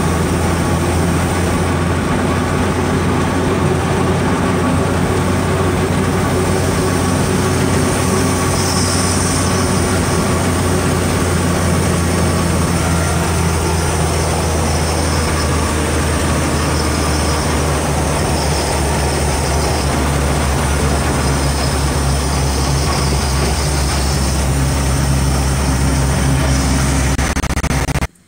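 Truck engine and road noise heard from inside the cab while driving: a loud, steady low drone with rumble. It cuts off suddenly near the end.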